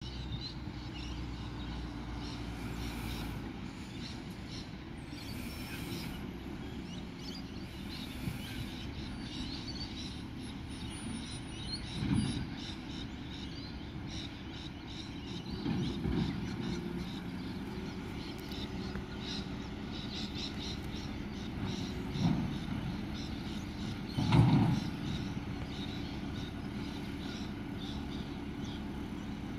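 Distant front-loader garbage truck engine running steadily as it works a bin with its hydraulic forks, with a few dull thumps and knocks, the loudest near the end.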